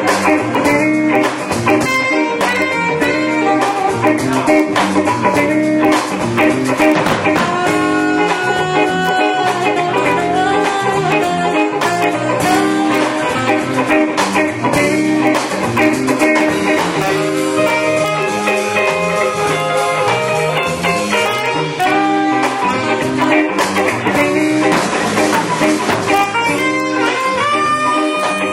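Live blues band playing an instrumental passage, with electric guitar, saxophone and drum kit.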